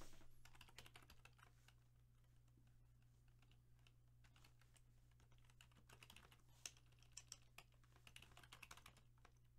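Faint, scattered light clicks and taps of trading cards and card packs being handled on a tabletop, a few sharper ticks from about six to eight seconds in.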